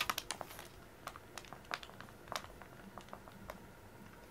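Quiet, scattered light ticks and taps from a cat teaser wand being flicked across foam floor mats: a quick cluster at the start, then a few single ticks spaced about half a second to a second apart.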